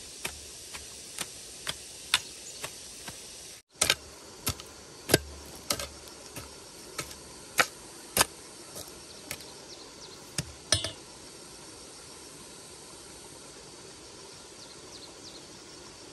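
A run of sharp, irregular knocks, about one or two a second, like chopping or tapping with a tool. They stop about eleven seconds in, and a steady low hiss runs underneath.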